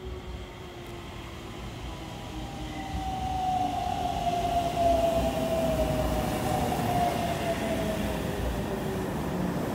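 Aichi Loop Railway electric train arriving at the platform and braking. Its motor whine falls steadily in pitch as it slows, over wheel rumble that grows louder until about five seconds in.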